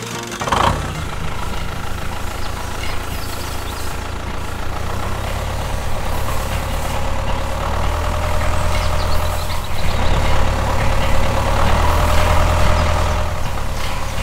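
Tractor engine running steadily, a low rumble with a droning hum above it, a little louder in the second half.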